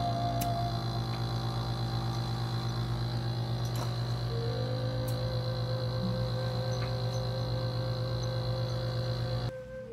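Loud steady electrical hum that cuts off suddenly near the end, under soft ambient music of long held, slightly wavering notes that shift pitch twice.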